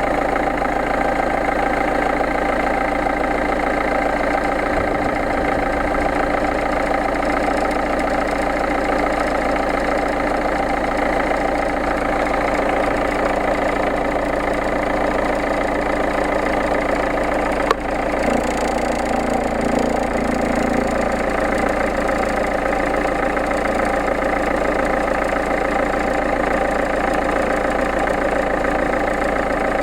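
A 2.0 HDi 66 kW four-cylinder diesel engine idling steadily, making the noise its owner calls bad. A single sharp click comes about two-thirds of the way through, followed briefly by a changed low hum.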